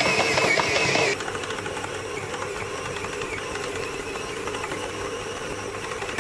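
Kenwood Chef XL Titanium stand mixer kneading a very heavy batch of bread dough at its rated 2.5 kg limit: a steady motor drone with fast rattling, the machine vibrating so hard it shifts on the wooden table. Background music plays for about the first second.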